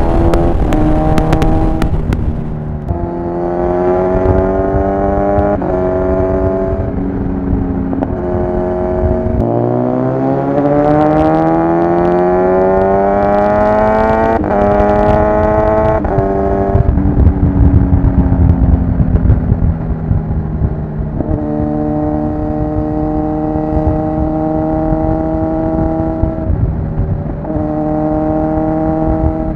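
Kawasaki Ninja 1000SX inline-four engine and exhaust pulling at highway speed. The pitch steps up and down several times as gears change, with one long rising pull about ten seconds in. Wind rush sits underneath.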